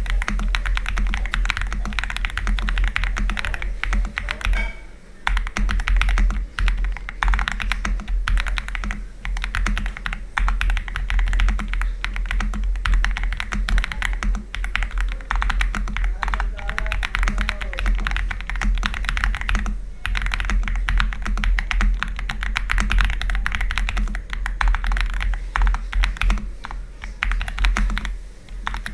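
Attack Shark X85 mechanical keyboard fitted with aftermarket switches being typed on rapidly and continuously, a dense stream of key clacks with a brief pause about five seconds in.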